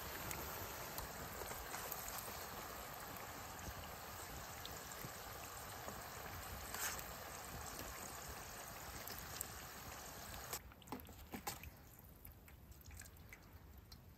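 Bacon sizzling in a hot skillet, a steady hiss with a spatter about seven seconds in. The sizzle drops away after about ten and a half seconds, leaving light clicks and taps as the bacon is handled.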